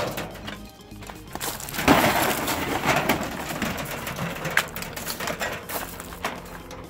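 Footsteps and a wheelbarrow's wheel crunching over loose gravel, in irregular scrapes and crunches, loudest about two seconds in, over faint background music.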